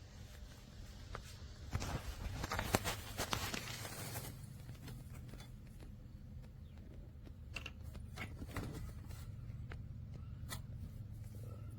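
Handling noise: a stretch of rustling and scraping about two seconds in, then a few separate sharp clicks, over a low steady hum.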